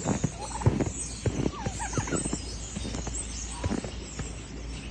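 Domestic poultry calling: a few short calls that slide up and down in pitch, mostly in the first half, among scattered clicks and knocks.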